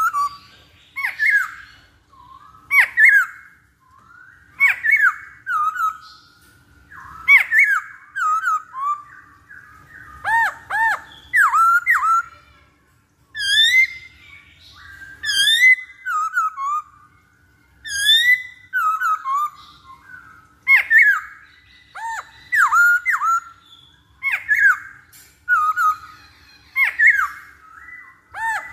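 Masked laughingthrush (poksay Hongkong) calling in loud, repeated phrases of slurred, swooping notes, a burst every one to two seconds.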